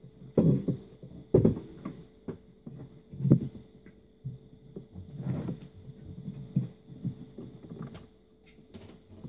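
Handling noise: irregular thumps and knocks as the charging pad, its cable and its wall adapter are moved about and plugged in, over a faint steady hum.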